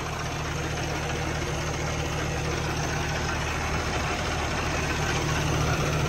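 Heavy diesel truck engine idling steadily under an open hood, growing slightly louder toward the end, while the truck runs a DPF regeneration.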